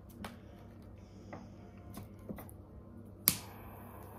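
A lighter clicks alight about three seconds in, followed by the hiss of its flame for nearly a second as a joint is lit. A few faint taps come before it.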